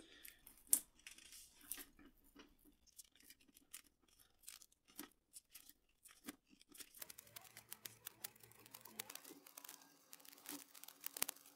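Faint, scattered crinkles and ticks of a self-adhesive LED strip being peeled from its backing tape and wrapped around a wooden dowel.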